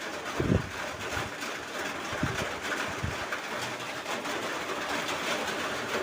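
A few soft knocks of metal parts being handled while fitting a motorcycle chain's connecting link, the first and loudest about half a second in, over a steady background hiss.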